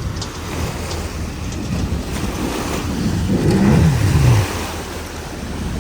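Jet ski engine running under way with rushing water and wind. It revs up about three seconds in, then the pitch falls away as the throttle comes off.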